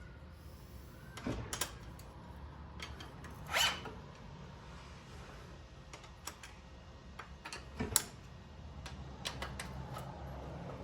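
Scattered clicks, knocks and a short scraping rasp from hand tools and metal parts being handled while the dirt bike's front end is taken apart.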